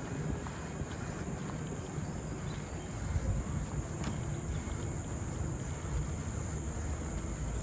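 A steady, high-pitched insect chorus over a low rumble of wind and movement from riding a bicycle along the path.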